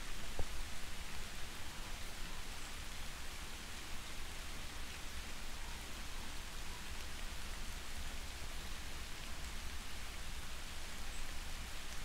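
Soft, steady rain falling outdoors, an even hiss with a low rumble underneath and a single sharp tap about half a second in.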